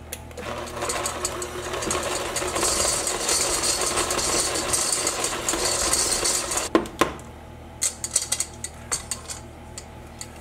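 Electric hand mixer running, its beaters churning thick brownie batter in a stainless steel bowl, for about six seconds before it stops with a knock. After that come a few light taps and scrapes of a spatula against the bowl.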